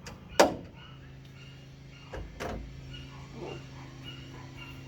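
A few sharp metallic clicks and a low knock, the loudest click about half a second in, as the hood lock's metal bracket and bolts are positioned and tightened with hand tools.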